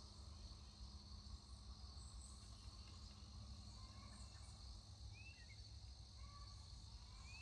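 Near silence with faint outdoor ambience: a steady high insect drone, with two brief faint bird chirps, one about five seconds in and one near the end.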